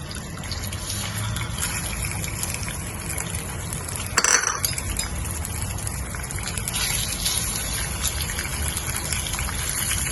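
Fish bones sizzling as they fry in hot oil in a pot: a steady hiss, with a brief louder burst about four seconds in.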